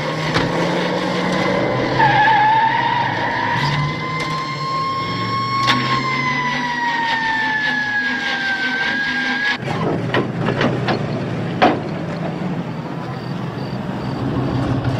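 Vintage car engines running with a low rumble. A long, high squeal slowly rises and then falls for about seven seconds in the middle, and a few sharp knocks follow.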